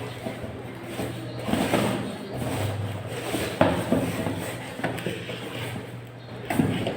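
Handling sounds: several sharp knocks and clatters with rustling between them, over a steady low hum.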